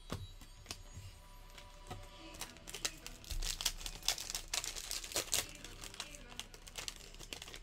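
Foil booster-pack wrapper crinkling and tearing as it is opened by hand. The dense run of crackles comes between about two and a half and five and a half seconds in.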